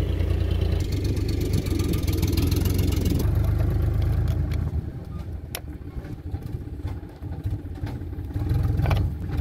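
A low engine rumble, louder for the first three seconds and then easing off, with one sharp click about halfway through.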